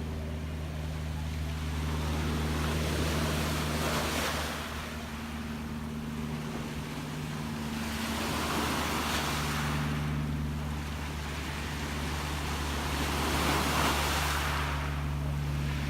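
Gentle sea waves washing in, the surf swelling and fading about every five seconds, over a steady low hum.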